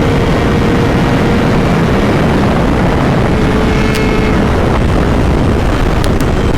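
Kawasaki 636 inline-four sport bike at speed, its engine running steadily under heavy wind rush on the rider's microphone.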